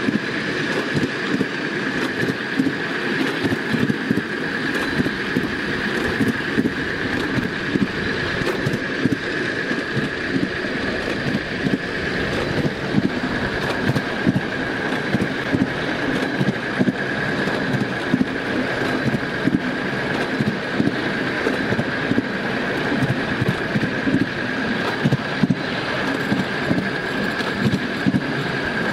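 Ride-on miniature railway locomotive running along the track: the wheels rumble over the rails with frequent irregular clicks, under a steady high whine.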